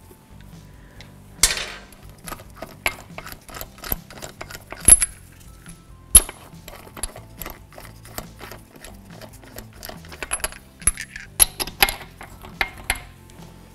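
Steel lug nuts being spun off the wheel studs by hand and clinking against each other in a gloved hand: a scatter of small metallic clicks and clinks, two of them sharper and louder about five and six seconds in.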